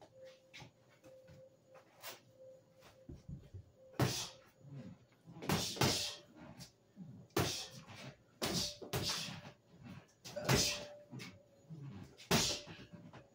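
Gloved jabs landing on a hanging teardrop punching bag, about ten irregularly spaced hits, each with a short sharp hiss of breath.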